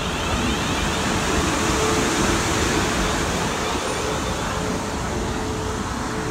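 South Western Railway Class 450 Desiro electric multiple unit at the platform, a steady hum and hiss of its onboard equipment with a faint steady whine.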